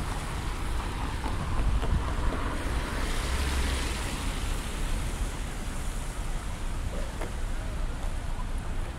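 Street traffic on a wet road: a car passes with a swell of tyre hiss about three seconds in, over a steady low rumble.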